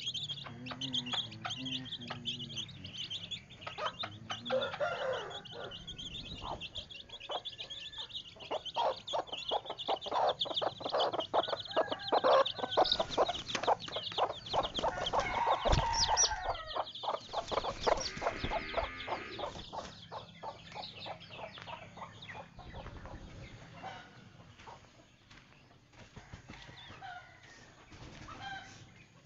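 Chickens clucking and calling, loudest in the middle stretch, amid many sharp clicks. Small birds chirp high at the start.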